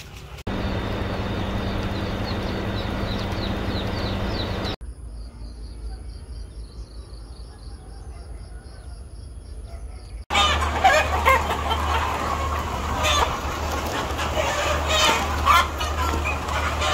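A crowded flock of chickens clucking and calling in a poultry house, many overlapping short calls over a steady low hum, starting abruptly about ten seconds in. Before it come two other abruptly cut stretches: steady noise with a low hum, then a quieter stretch with a high, even pulsing tone.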